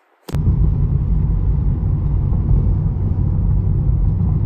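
A car driving, heard from inside the cabin: a steady low rumble of engine and road noise that starts abruptly about a third of a second in.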